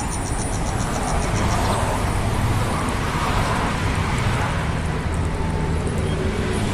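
Steady rumble of distant road traffic.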